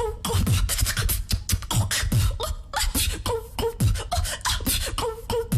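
A female beatboxer performing a steady mouth-made beat of deep kick drums, sharp snare and hi-hat clicks, with short hummed notes woven in.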